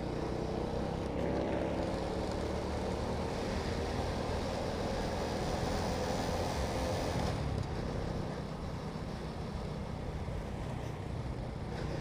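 Motorcycle engine running and road noise while riding, a steady drone. About seven seconds in the engine note fades and the sound gets a little quieter, as the engine is eased off.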